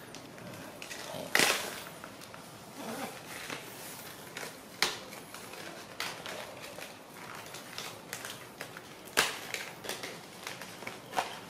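Clear plastic toy packaging crinkling and crackling as a baby monkey grabs and pulls at it. There are irregular sharp crackles, the loudest about a second in, near the middle and a couple of seconds before the end.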